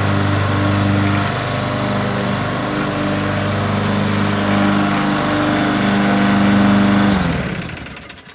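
Craftsman gas walk-behind lawn mower engine running steadily. About seven seconds in it is shut off and spins down, its pitch dropping as it fades out within a second.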